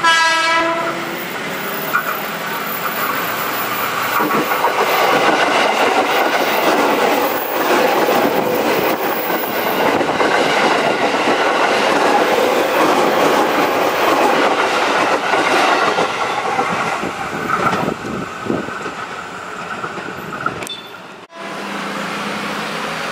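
KRL Commuter Line electric multiple unit sounding its horn briefly as it approaches, then running past close by with the rush and rattle of its wheels clacking over the rail joints. The sound builds to its loudest in the middle as the cars pass and fades after, before a sudden cut to a quieter background.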